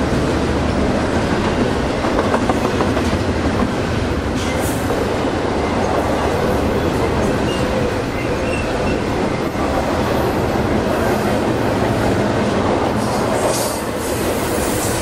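Double-stack intermodal freight train rolling past: a steady loud rumble of steel wheels on rail with the clatter of the cars, and a few short, faint, high wheel squeals about halfway through.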